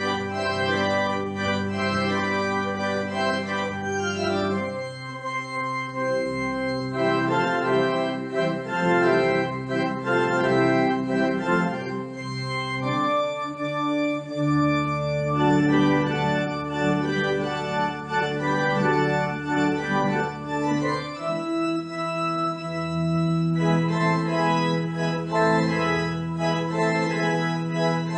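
Pipe organ playing slow sustained chords, with a held bass note that changes every few seconds and a moving line of notes above it.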